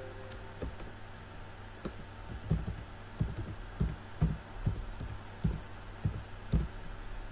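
Typing on a computer keyboard: about a dozen separate keystrokes, one key at a time at an uneven pace, as an IP address is keyed in.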